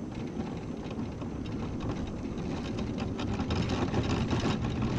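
Battery-powered mobility scooter rolling along cracked asphalt: steady road rumble from its small tyres, with many quick rattles and clicks from the scooter body, busier in the second half.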